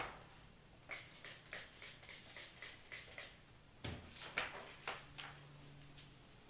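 Plastic aquarium background sheet crackling as its backing is peeled off and the sheet is handled: a quick run of short crackles, about three a second, then a thump about four seconds in and a few more crackles.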